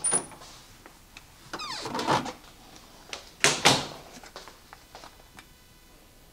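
A kitchen door being opened and shut, with a sliding scrape about two seconds in and a louder knock at about three and a half seconds.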